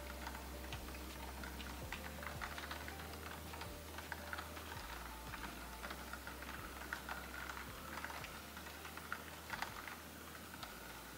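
Light rain, with raindrops tapping irregularly on a window pane in scattered soft clicks over a low steady hum.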